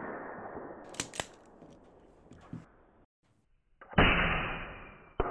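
Daystate Delta Wolf PCP air rifle firing: a sharp report about four seconds in that fades away. Earlier, about a second in, two quick sharp clinks of pellets striking the steel targets, while the report of a previous shot dies away.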